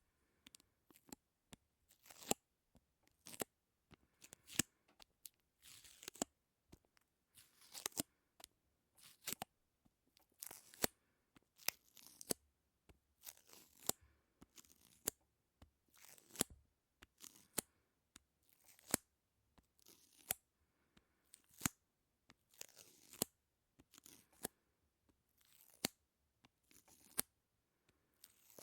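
Close-miked sticky ASMR sounds: sharp clicks and short crackly peeling noises, one roughly every second, with quiet gaps between them.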